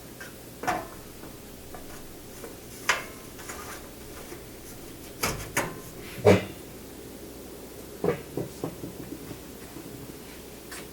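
Irregular clicks and knocks of small objects being handled and set down on a workbench, over a steady low hum. The loudest knock comes a little past the middle, followed by a run of lighter ticks.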